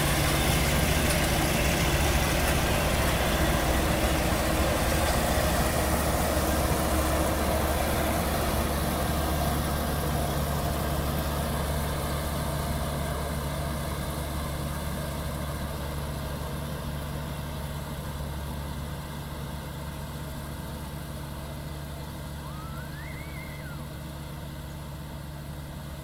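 Kubota ER112 combine harvester's diesel engine and threshing machinery running steadily while cutting rice, growing gradually fainter as the machine moves away.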